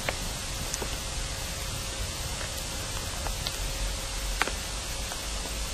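Amplified underground listening feed: a steady hiss with a faint steady hum and a few scattered small clicks, the strongest about four and a half seconds in. The uploaders present these as sounds of people moving in a tunnel about 20 m below ground.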